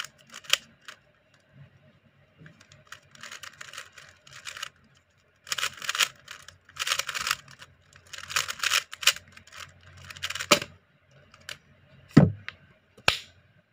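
Gan 356M speedcube being turned by hand: bursts of rapid plastic clicking as the layers are spun. Near the end there is one thump and then a single sharp click.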